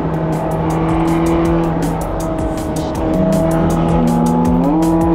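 Music with a fast, steady beat and held notes that change in steps; one note slides up near the end.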